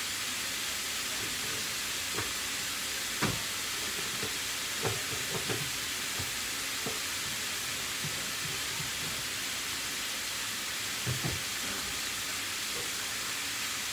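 Ground beef sizzling steadily in a frying pan, with a handful of short clicks through it.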